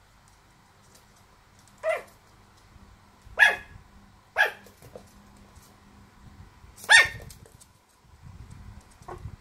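Dog play-barking: four short, high-pitched barks a second or two apart, the last one the loudest. Faint scuffling follows near the end.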